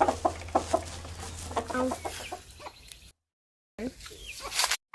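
Chickens clucking in short, separate calls, with a brief dropout to silence about three seconds in.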